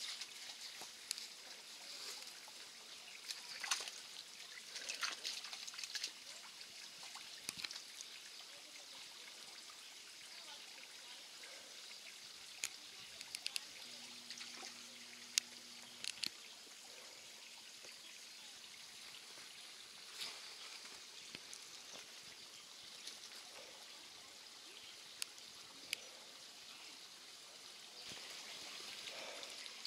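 Faint trickle of water running thinly over rock at a waterfall with low flow, with scattered clicks and taps.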